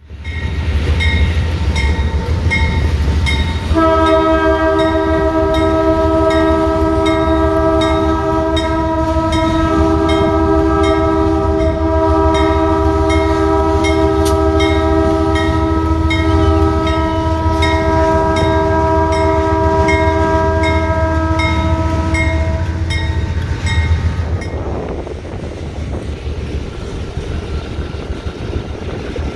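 Ferromex C30-Super 7 MP diesel locomotive passing with a low rumble and a regular clack of wheels over the rail joints. From about four seconds in, its air horn sounds one long blast of several notes at once, held for nearly twenty seconds before it cuts off.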